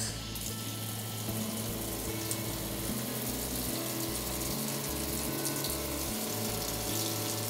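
Purified water running steadily from the dispenser of a Rapids Type I lab water purification system, starting suddenly as the dispense button is pressed.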